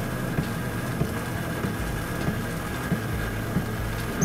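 Electric power seat motor running, driving the bucket seat along its track. A steady hum and whine with a soft tick roughly every two-thirds of a second.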